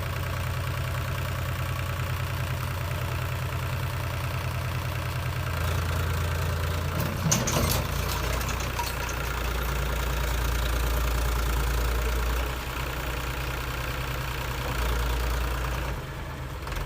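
Diesel engine of a backhoe loader at work, running steadily, its engine speed stepping down and changing several times. A short clatter comes about seven seconds in.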